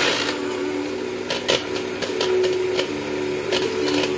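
Electric hand blender running in a plastic measuring jug, whipping an egg: a steady motor hum that shifts a little in pitch, with a few short knocks of the blender against the jug.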